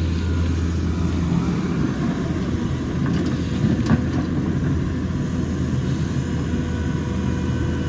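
Excavator's diesel engine running steadily: a low drone with a thin steady whine, and a couple of faint knocks three to four seconds in.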